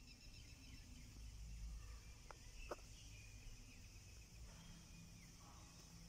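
Faint outdoor ambience: a steady high insect hiss with a few faint bird chirps, and two short clicks close together around the middle.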